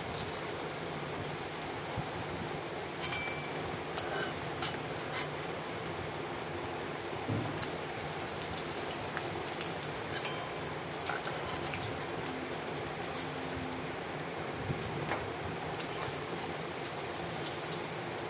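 Surmai (king mackerel) fish pieces shallow-frying in hot mustard oil in a kadai: a steady sizzle with scattered sharp crackles.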